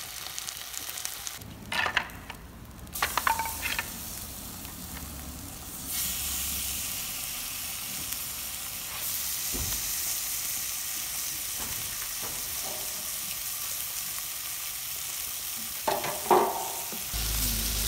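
Marinated meat sizzling as it fries in a frying pan over a wood-fired rocket stove, with a few short knocks and clatters. The sizzle grows louder about six seconds in.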